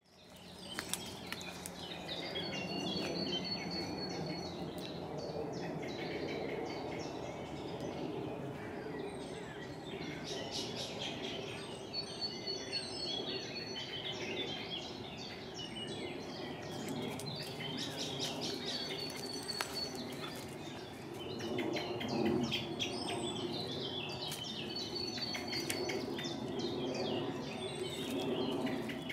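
Woodland birdsong: several birds chirping and warbling in short repeated phrases over a steady low rushing background noise, with a few faint clicks.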